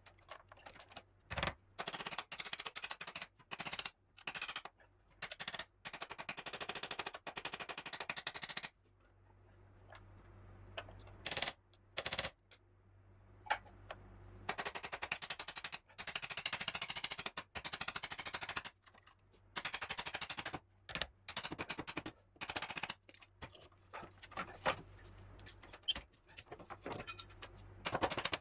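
Hand-tool work at an Argo 6x6 wheel hub while a plastic track is fitted: bursts of rapid sharp clicking, each a second or two long, broken by short pauses. In the middle there is a quieter stretch with only a few single knocks.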